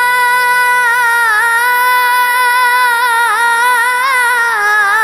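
A boy's high singing voice holds one long note that turns into small wavering ornaments after about a second, in an Urdu naat. Underneath is a low drone that shifts pitch twice.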